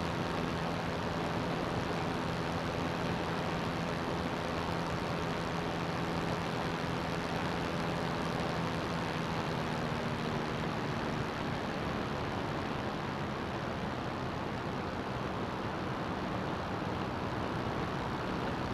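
CGS Hawk ultralight's engine and propeller running steadily at cruise power, a droning tone under heavy wind rush, easing slightly in pitch and level about eleven seconds in.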